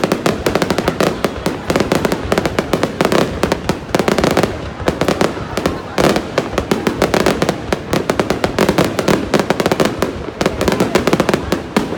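Aerial fireworks display going off in a dense, continuous barrage of bangs and crackles, many per second.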